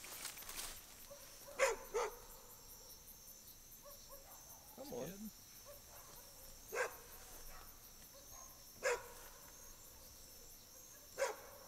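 Dog barking at intervals, five single barks, over a steady chorus of crickets and other night insects.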